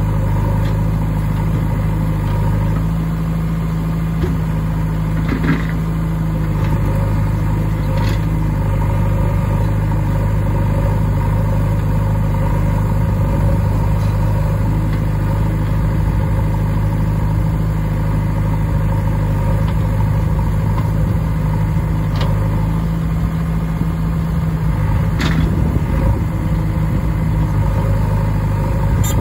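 Diesel engines of a JCB 3DX backhoe loader and a Mahindra 575 DI tractor idling steadily side by side, with a few faint knocks.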